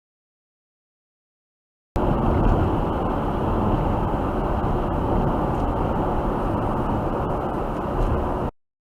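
Steady road and engine noise of a car driving, as heard by a dashcam, which cuts in abruptly about two seconds in and cuts off abruptly near the end, with dead silence on either side.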